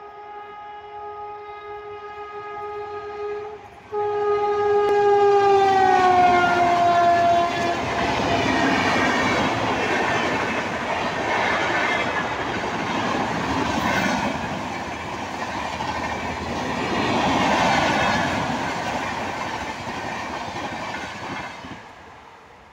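WAP-7 electric locomotive sounding a long steady horn blast, breaking off briefly just before four seconds in. The horn comes back louder, its pitch dropping as the locomotive passes. The passenger coaches then run past with the noise of wheels on rails, which fades near the end.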